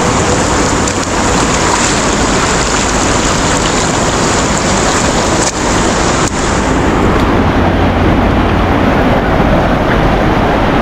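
Fast, muddy river rushing over rocks in rapids: a loud, steady rush of water, with a couple of brief knocks around the middle.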